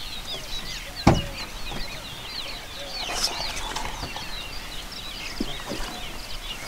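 Dense chorus of many small birds, with overlapping short chirps and whistles. One sharp crack comes about a second in.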